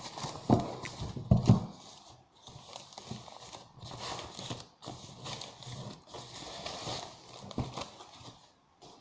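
Tissue-paper wrapping rustling and crinkling as it is pulled off a piano pedal unit, with hollow knocks as the unit bumps the cardboard box. The knocks are loudest in the first two seconds, with one more near the end.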